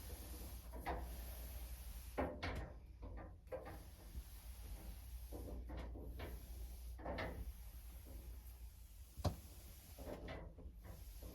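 Belongings being handled and moved while a closet is emptied: irregular rubbing and rustling with scattered knocks, and one sharp knock about nine seconds in.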